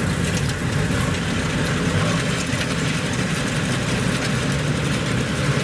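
Kubota DC-105X combine harvester running steadily at working speed: its diesel engine drones under load, with the clatter and rush of the cutting and threshing machinery on top.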